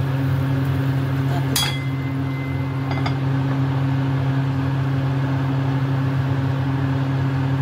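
A metal lid is set onto a cooking pot with a clink about one and a half seconds in, ringing briefly, then a lighter knock about a second later. A steady low hum runs underneath.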